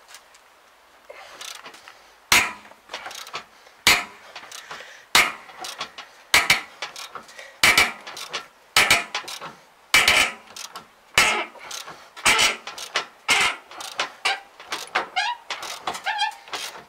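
Ratchet wrench being worked back and forth on a bolt at the end of a baler roller: a sharp metallic clack with a rattle of ratchet clicks about once every second and a bit, with a few short squeaks near the end.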